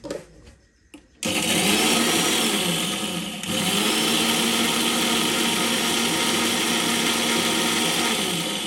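Small electric spice grinder (mixer-grinder) running, grinding dry spices in its steel jar. The motor starts about a second in, its pitch sagging and recovering under the load, cuts out briefly at about three and a half seconds, then runs steadily again until near the end.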